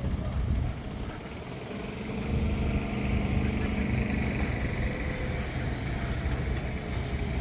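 A motor vehicle's engine running close by, growing louder about two seconds in, with a steady low hum and a faint higher whine over a low rumble.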